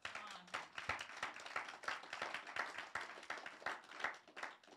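Audience applauding: many hands clapping at once, starting suddenly and thinning out near the end.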